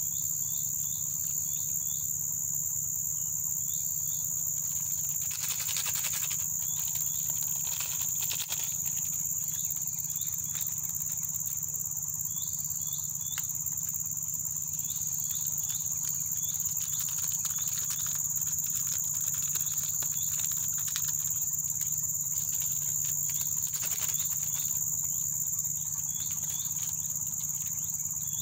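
Steady high-pitched insect chorus, with short chirps in quick groups over it. A few crackles and rustles of seasoning sachets being handled and torn open come about five to nine seconds in.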